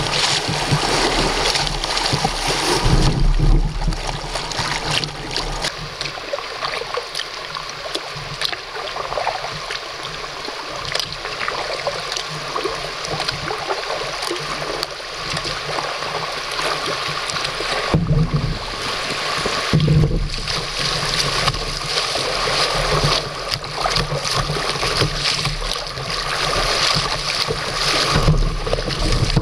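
River water rushing and splashing around a kayak as it runs shallow riffles, a steady wash with a few short low bumps, loudest where the bow cuts through rough white water near the end.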